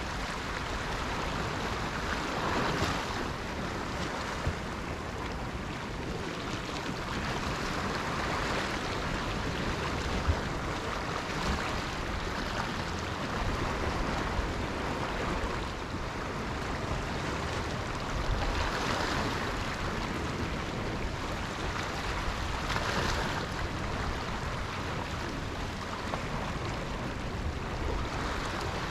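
Ocean waves washing onto the shore, a steady surf hiss that swells every few seconds as each wave breaks, with some wind rumbling on the microphone.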